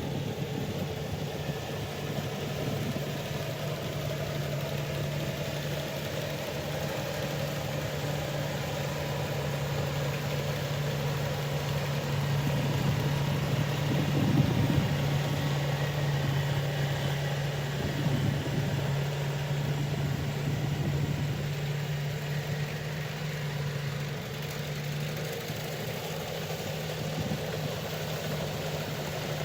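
Rice combine harvester's engine running steadily, a constant low drone with slight swells in loudness now and then.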